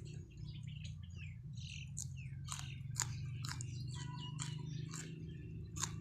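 Small birds chirping in repeated short calls, mixed with the wet clicks and smacks of someone chewing and slurping noodles, over a steady low hum.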